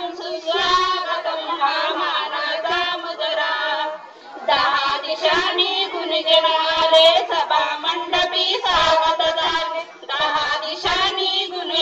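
A group of women singing together into a microphone, in long held phrases with short breaks about four seconds in and again near the end.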